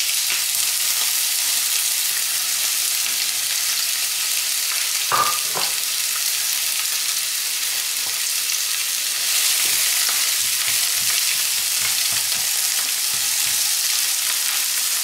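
Sliced onion half-rings frying in a little oil in a frying pan, a steady sizzling hiss. Two light knocks come about five seconds in.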